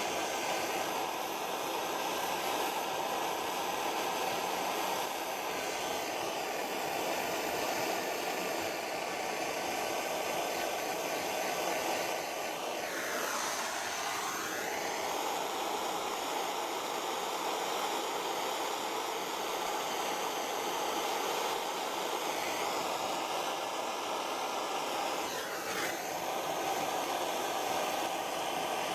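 Blow lamp flame running steadily with a rushing hiss while heating the exhaust assembly to melt the silver solder rings. Its tone briefly sweeps down and back up twice, about halfway through and again near the end.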